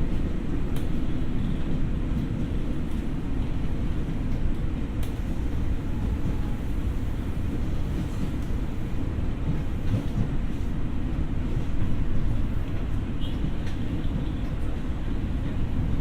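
Running noise inside a former Tokyo Metro 6000 series electric train car: a steady low rumble of wheels on rail, with a few faint clicks.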